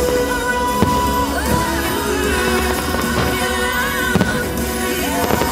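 Fireworks-show soundtrack music playing loudly, with sharp firework bangs about a second in and again around four seconds in.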